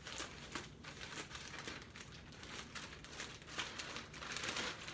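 Packaging crinkling and rustling irregularly as a mailed package is opened by hand.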